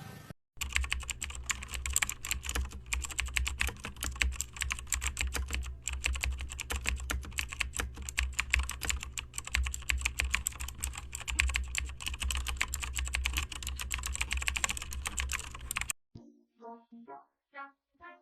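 Rapid, irregular clicking of keys being pressed on a computer keyboard, over a steady low hum; it stops abruptly about 16 seconds in, and a few faint short tones follow.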